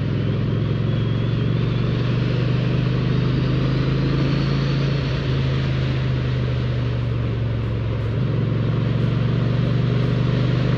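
Honda Shadow Aero 750 V-twin engine running steadily while riding, heard under steady wind noise on the helmet. The engine note dips briefly about eight seconds in, then carries on.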